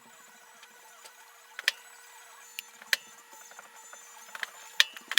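Sharp, irregular metallic clicks and clinks of milling-machine spindle parts being handled, coming more often near the end, over a faint steady hum.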